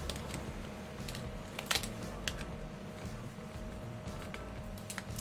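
Scattered light clicks and taps of a screwdriver and plastic housing parts being handled while a cordless drill is taken apart, the sharpest about a second and a half in, over a steady low hum.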